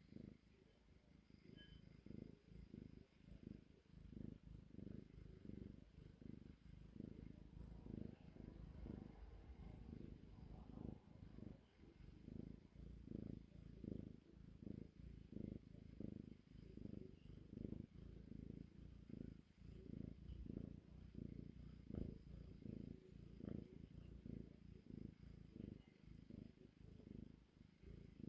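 A tortoiseshell kitten purring while she dozes, faint and close, in an even run of low pulses that come a couple of times a second.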